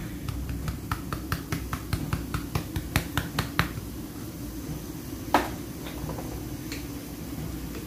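Fingers rubbing together to crumble ground black pepper over a fish in a wok: a quick run of light clicks for about three and a half seconds, then two more single clicks, over a steady low hum.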